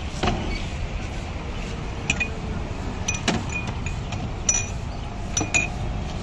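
Drinking glasses clinking as they are handled and set down: several sharp, scattered clinks, each with a short ring, over a steady low background rumble.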